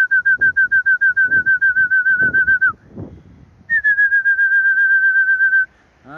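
A pigeon keeper's whistle calling the returning flock down to the loft roof: a loud, high trilling whistle pulsing about seven times a second, in two long blasts with a break of about a second between them. The first blast dips in pitch as it ends.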